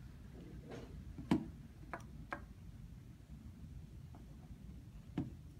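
Light plastic clicks and knocks as liquid is poured from a plastic gallon jug through a funnel into a spray bottle: a handful of sharp clicks, the loudest about a second and a half in, over a low steady background.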